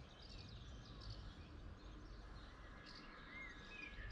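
Faint outdoor background with small birds chirping, a few short chirps and little rising-and-falling calls, more of them in the second half.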